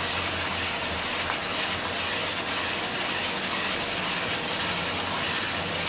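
Spice paste of onion, ginger, garlic and ground spices with a little water sizzling and bubbling steadily in a frying pan while a spatula stirs it: the masala being fried down until its raw flavour cooks off.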